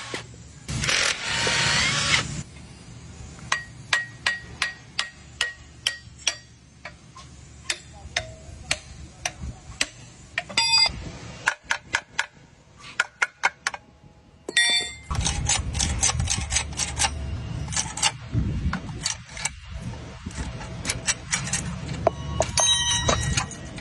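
Hand tools on metal parts: a long run of separate taps, clicks and clinks, some ringing briefly. A low steady hum runs under them during the second half.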